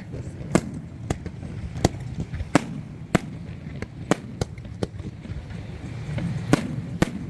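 Fireworks bursting in an irregular series of sharp bangs, about a dozen in a few seconds, over a low steady murmur.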